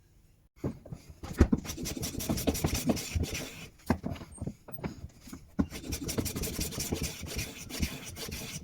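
Hand plane cutting along a wooden bench leg: a quick run of rasping strokes with sharp knocks, starting about half a second in.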